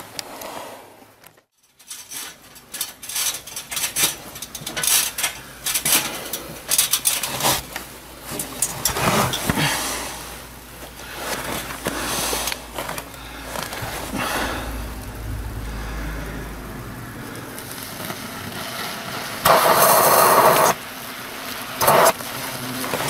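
Knocks, clicks and scrapes of a long telescopic insecticide lance being worked up through roof timbers and into an Asian hornet nest. About twenty seconds in comes a loud rush lasting about a second, then a shorter one, as pyrethrum insecticide is puffed into the nest.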